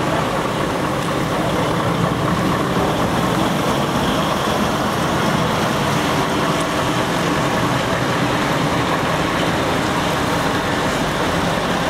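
Diesel engines of several heavy truck tractor units, a DAF and a Scania among them, running as the trucks drive slowly past one after another: a steady, even rumble.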